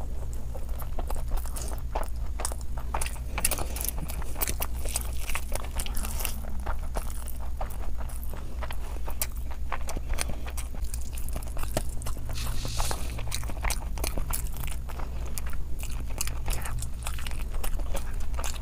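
Close-miked chewing and biting as a mouthful of spicy mutton and biryani is eaten by hand. It is a dense run of irregular sharp clicks over a steady low hum.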